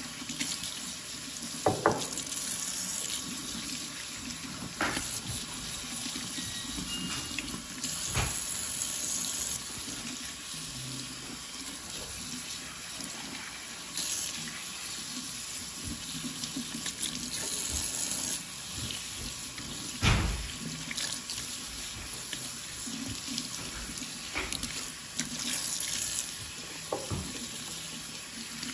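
Kitchen faucet running into a stainless steel sink while wet hair bundles are rinsed under the stream, washing the shampoo out. A few sharper splashes or knocks break the steady flow, the loudest about twenty seconds in.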